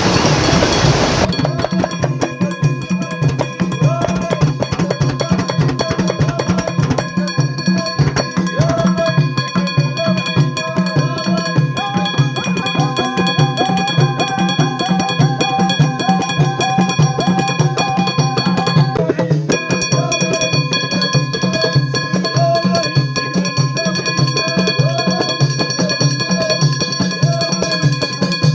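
Background music with a steady drum beat and a repeating melody. A rushing noise underneath cuts off about a second in.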